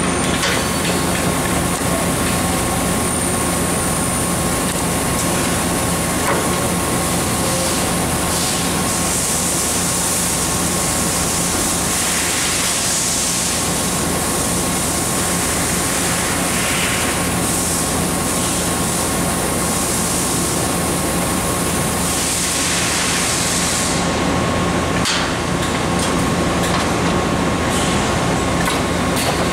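Royal Master Generation 3X centerless guidewire grinder running: a steady machine hum with a constant tone, plus a high hiss that swells a few times and then falls away about 24 seconds in.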